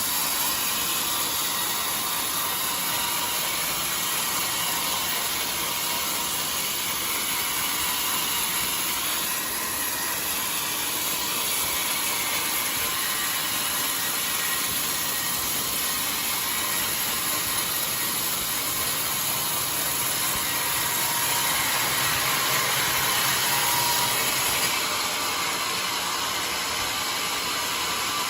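Bandsaw mill running, its blade sawing through a jackfruit log with a steady mechanical noise and high hiss; the high hiss drops away near the end.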